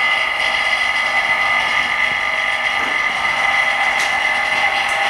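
A small electric motor running steadily with a constant high-pitched whine, typical of a motorized repair tool or machine on the bench.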